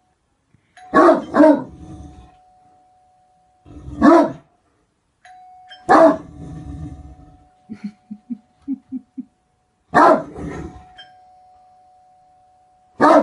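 A Great Dane barking: deep single barks, a quick pair about a second in, then one every two to four seconds. A faint steady tone sits under most of it, and a few short, soft low sounds come between barks in the middle.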